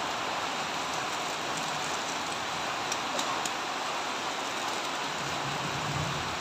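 Steady hiss of heavy rain, with a few faint light ticks about three seconds in.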